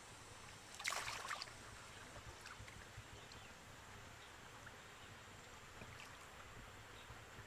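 River water splashing briefly about a second in as a person wading waist-deep moves through it, then faint dripping and lapping.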